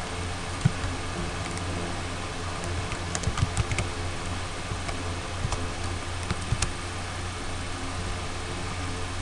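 Computer keyboard keys clicking in a short run of typing about three seconds in, with a few single clicks a couple of seconds later, over a steady low hum.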